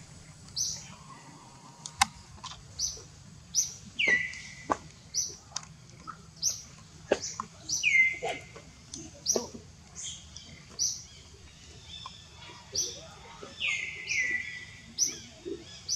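A bird calling: short high chirps repeated about once a second, with three longer notes that fall in pitch and level off. A few sharp clicks come in between.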